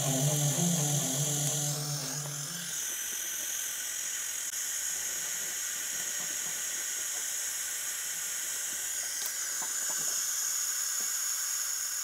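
Background music with a low bass line that stops about two and a half seconds in, leaving a steady high hiss.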